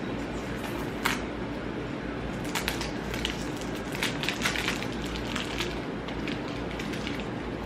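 Packaging crinkling and clicking in short irregular crackles as a small perfume box is opened, over a low steady hum.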